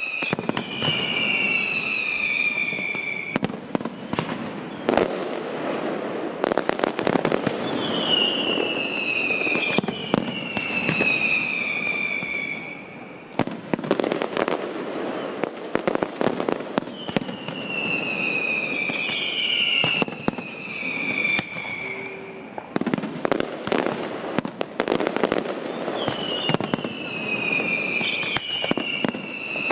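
Aerial fireworks display: shells bursting in clusters of sharp bangs and crackle, with whistling effects recurring every several seconds, each whistle sliding down in pitch over two or three seconds, often several together.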